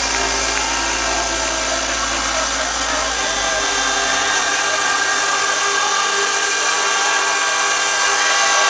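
Electronic dance music from a DJ set over a large venue sound system: held synthesizer tones over a high hiss, with the deep bass fading out about three seconds in, the build-up ahead of a drop.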